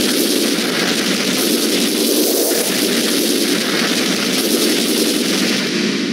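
A loud, harsh wall of noise with no clear tone or beat, steady throughout: audio pushed into heavy digital distortion.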